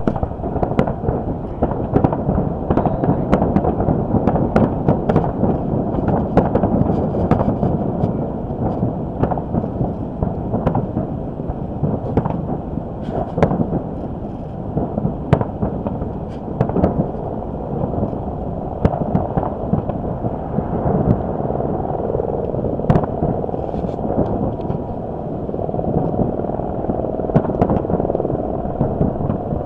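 Aerial fireworks bursting in quick succession, many sharp bangs and crackles over a steady low rush of wind buffeting the microphone.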